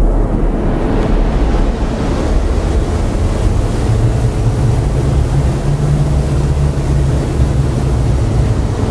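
Ambient effects soundscape: a steady rumbling noise like wind or surf, with a low hum that comes in about three and a half seconds in and fades near the end.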